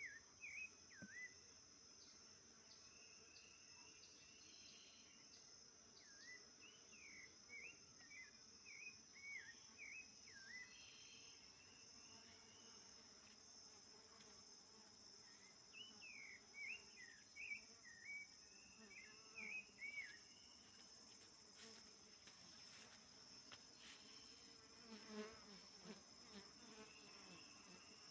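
A sabiá thrush singing: short phrases of looping whistled notes in two bouts, over a steady high insect trill. A few faint clicks and rustles come near the end.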